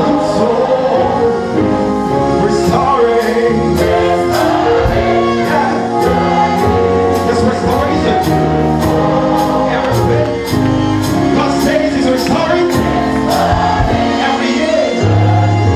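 Live gospel music, amplified: a mixed choir of men and women singing with a male lead on microphone. The band behind them plays a steady percussion beat that ticks several times a second.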